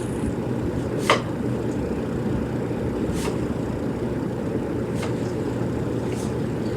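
Ceiling fan running: a steady low whooshing hum, with a few faint clicks, the clearest about a second in.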